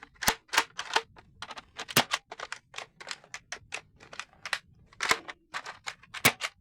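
Rapid, irregular plastic clicks from handling an X-Shot toy foam-dart blaster, a few a second, with louder snaps about two seconds in, near five seconds and just before the end.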